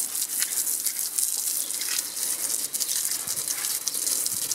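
Garden hose spray nozzle jet hissing steadily and spattering against a car's alloy wheel and tyre, rinsing off brake dust and wheel cleaner.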